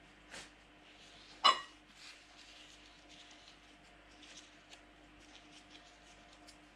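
Small light clicks and taps of a Shimano Ultegra XTD fishing reel spool being picked up and handled, over a faint steady hum. About a second and a half in there is one short, loud pitched sound.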